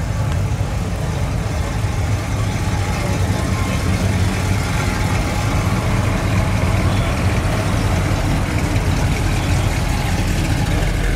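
Engine of a slowly passing Chevrolet Vega, running at a steady low idle with a low exhaust rumble.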